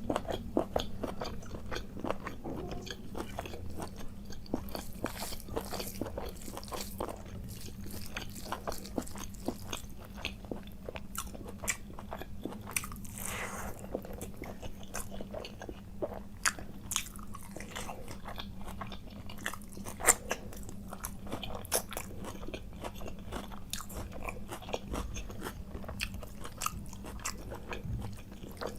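Close-miked eating: steady chewing and biting with frequent crunches and wet mouth clicks, over a steady low hum.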